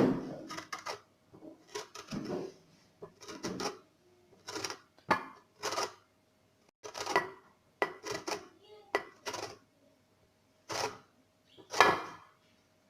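Lemon peel being rubbed against a fine metal grater, a dozen or more short rasping strokes at an uneven pace, taking off only the yellow zest.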